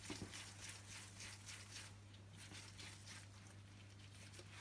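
Faint, soft squishing of hands rolling a mashed chicken, potato and cheese mixture into balls, a few quick soft rustles a second over a steady low hum.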